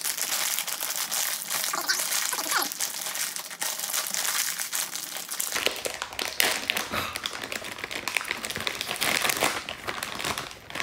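Plastic snack bag of caramel corn crinkling as it is pulled open and handled: a dense, unbroken run of crackles and rustles.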